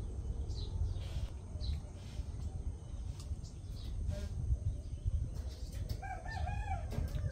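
A rooster crows once, a wavering call of about a second near the end. A few short, high bird chirps come in the first two seconds, over a steady low rumble.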